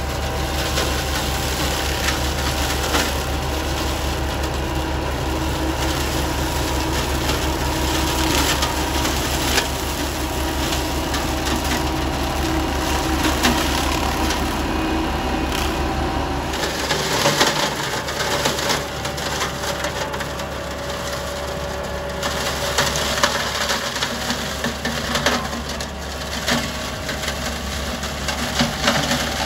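McConnell boom-arm hedgecutter's spinning flail head shredding the branches of a thick, overgrown hedge: a continuous rush of crackling and splintering wood. A low machine hum from the tractor and flail drive runs beneath it and fades about halfway through.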